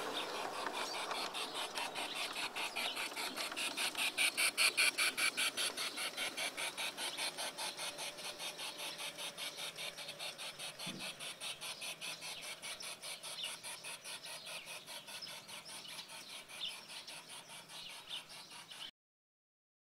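G-scale model train running on garden railway track, making an even clicking rhythm of several clicks a second. The clicking is loudest a few seconds in, then fades as the train draws away, and cuts off abruptly near the end.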